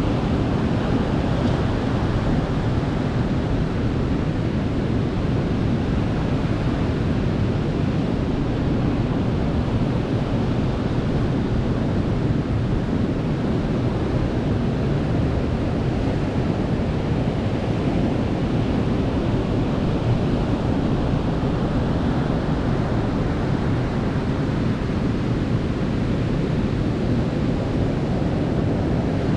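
Sea waves breaking and washing up a beach: a steady, continuous rush of surf with slight rises and falls in the hiss.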